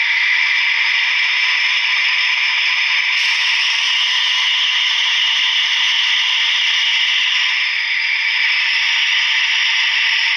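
Simulated diesel locomotive engine sound from an HO-scale SNCF BB 67000's DCC sound decoder, played through the model's small onboard speaker: a steady drone with no deep bass.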